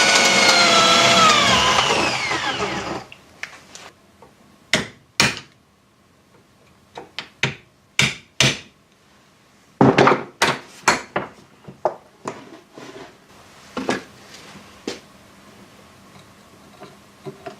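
Electric drill running steadily, then spinning down with a falling whine as it is switched off about three seconds in. A scattered series of sharp knocks and clicks from metal parts being tapped and handled follows.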